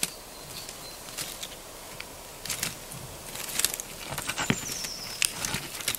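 Light crackling and rustling of larch twigs as a Eurasian red squirrel clambers among the branches picking buds, the small snaps coming more often in the second half. A faint high whistle, sliding slightly down, comes in about four seconds in.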